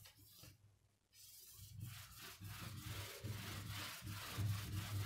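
A whiteboard being wiped clean with a duster: quick back-and-forth rubbing strokes, about four a second, starting about a second in.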